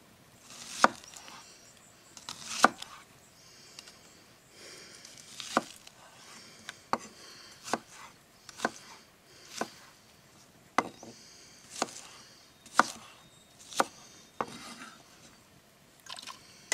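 Chef's knife chopping an onion on a wooden cutting board: single knocks of the blade on the board, roughly one a second, with a soft crunch between some of them.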